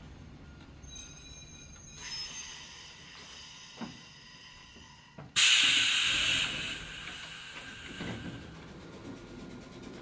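Hakone Tozan Railway Moha 1 electric railcar at low speed or standing, its low rumble quiet, then a sudden loud hiss of released compressed air from the car's air system about halfway through, fading out over a second or so.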